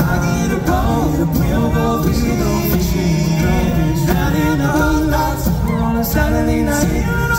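Men's a cappella group singing live in close harmony, with a deep bass voice underneath and a steady beat of vocal percussion.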